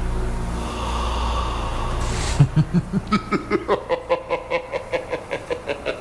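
Dramatic film score. A low sustained drone gives way, about two and a half seconds in, to a quick pulsing figure of notes, about five a second, that climbs in pitch and fades.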